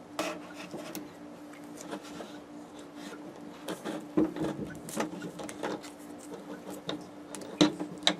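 Scattered light clicks and knocks of electrical wiring connectors and wires being handled and worked together, the sharpest clicks near the end, over a steady low hum.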